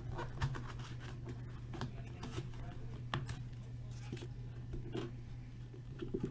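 Scattered scratchy rustles and light clicks of hockey card packaging and cards being opened and handled, over a steady low hum.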